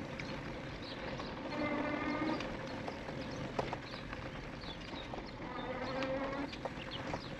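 An e-bike rolling along a dirt singletrack, with the rush of tyres and air and small knocks and rattles from bumps in the trail. A short buzzing hum comes in twice, about two seconds in and again near the end.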